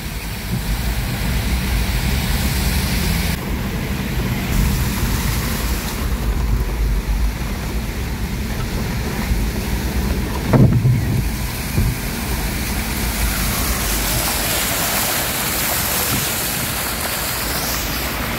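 Steady rain noise with wind rumbling on the microphone, and one brief louder sound about ten and a half seconds in.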